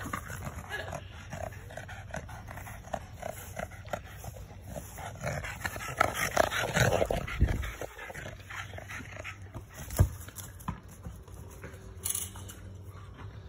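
Boston terrier making play noises as it noses and mouths a small rubber basketball in the grass, loudest about six to seven seconds in. There is a single sharp knock about ten seconds in.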